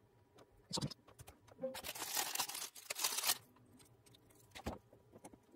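A sharp click, then a rustling, crinkling scrape lasting about two seconds, then another click near the end.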